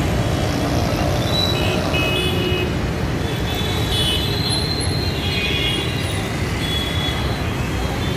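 Steady road traffic noise with short horn toots now and then.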